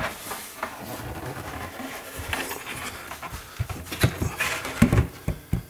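Timber frame of a loft hatch scraping and knocking against the edges of the ceiling opening as it is pushed up into place. The knocks come louder and more often in the second half, and a man breathes hard with the effort. The frame is catching on the opening because it doesn't fit.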